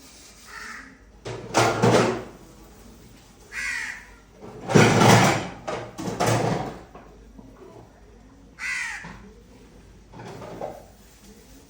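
A crow cawing, about six separate caws a second or two apart, the loudest near the middle.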